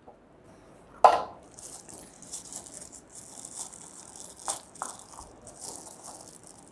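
Thin protective plastic wrapping crinkling and rustling as it is pulled off a small portable speaker by hand. There is a sharper crackle about a second in and a couple of clicks around the middle.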